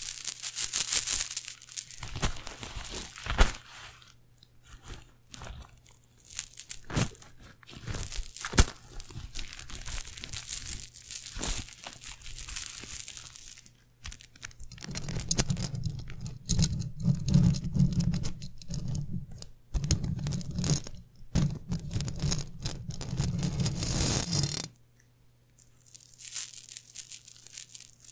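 Close-miked ASMR handling: a string of small metal coins is rubbed and shaken against a microphone grille by gloved hands, giving crackly scratching and clicking. From about 15 seconds in, the rubbing turns dense and rumbly as it presses on the mic, then stops briefly near the end before starting again.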